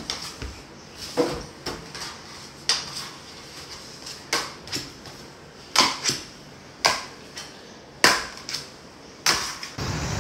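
Swim fins slapping on a hard tiled floor as a child moves about in them: irregular sharp slaps, about one or two a second.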